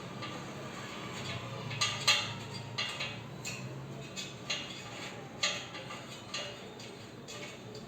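Irregular metallic clinks and taps, about a dozen, as nuts, bolts and tools knock against the steel pipes of a power rack's lat pulley frame while it is bolted together and tightened by hand.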